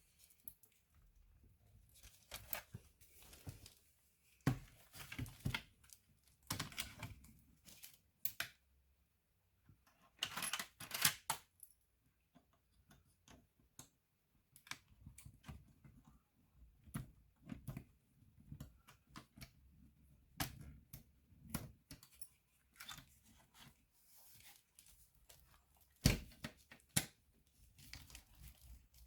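Irregular clicks, taps and short scrapes of a Lenovo B570e laptop's plastic and metal parts being handled and worked on by hand, with a longer scraping rustle about ten seconds in.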